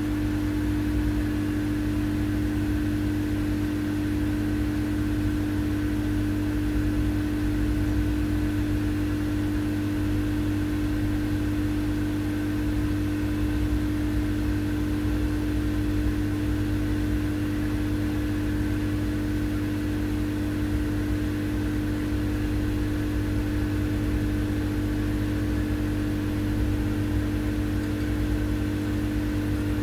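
Server rack cooling fans running at a constant speed: a steady whir with a strong, even hum and a rumble beneath it.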